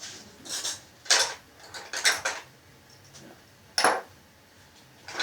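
Small metal parts of a gas-blowback airsoft rifle's bolt assembly clicking and clinking as they are handled and taken apart: four separate clacks with quiet between them, the sharpest near the end with a brief metallic ring.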